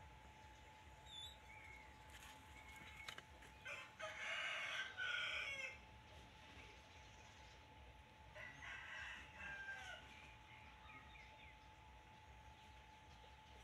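A rooster crowing in the background, a longer call about four seconds in and a shorter one near nine seconds, over a faint steady whine.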